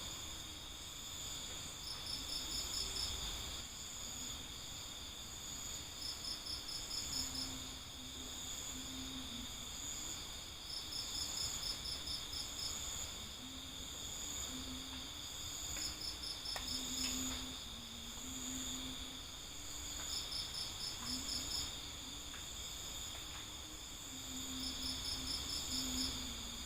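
Crickets chirping at night: a steady high-pitched chorus of trills, with one louder pulsed trill of about a second repeating every four to five seconds.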